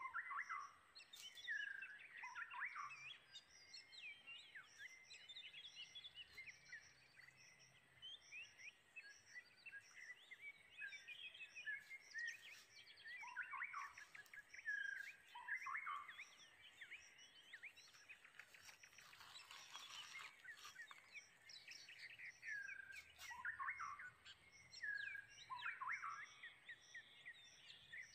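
Faint birds chirping and calling, many short notes that sweep down in pitch, over a high insect call pulsing at an even pace and a thin steady high whine.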